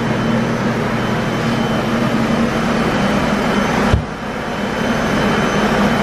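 Flood-drying blowers running: a steady, loud rush of air over a constant motor hum. About four seconds in there is a single knock, and the noise dips briefly after it.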